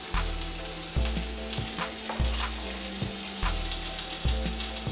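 Butter sizzling in a hot cast grill pan under halved boiled potatoes, a steady frying hiss with scattered crackles.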